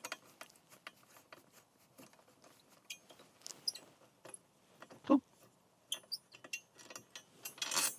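Scattered faint clicks and taps of an 8 mm hex key on the bolts of a motorcycle's rear rack as they are worked loose, with one louder short sound about five seconds in.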